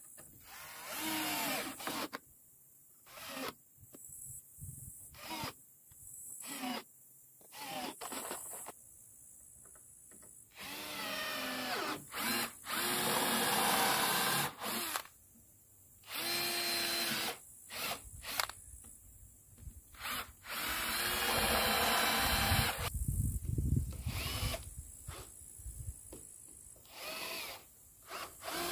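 Cordless drill driving screws into the wooden planks of a well cover: many short bursts of motor whine and a few longer runs of two to three seconds, with pauses between screws.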